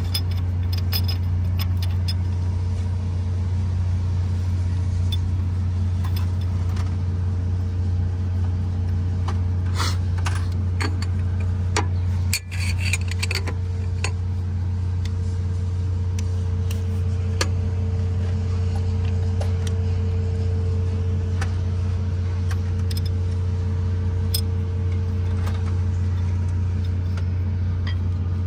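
Steady low hum of running machinery, with scattered light metallic clinks of hand tools working on the engine's injector and valve rocker gear.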